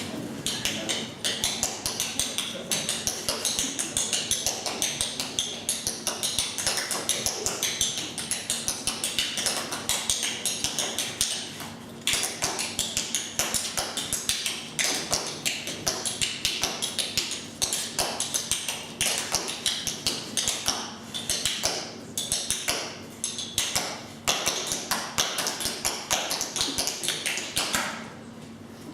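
Rapid, irregular light taps or clicks, several a second, over a faint steady hum.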